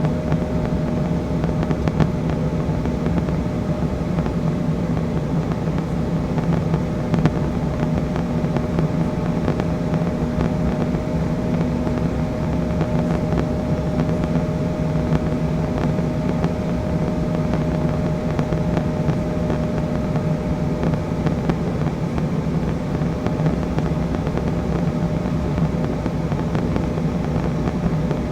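Delta Embraer E175 in flight on descent: the steady drone of its two General Electric CF34 turbofan engines and the rushing air. A steady whine runs on top and fades about twenty seconds in.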